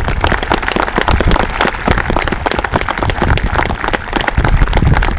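A small group of people applauding, with dense, irregular hand claps.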